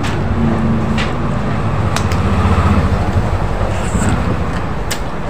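Low, steady rumble of a motor vehicle engine running nearby, swelling about halfway through and easing off again, with a few light clicks.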